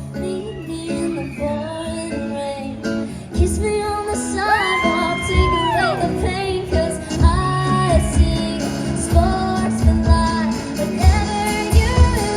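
Live pop-rock band performance: a female lead singer sings over electric guitar, bass and drums. The drums come in harder about three and a half seconds in.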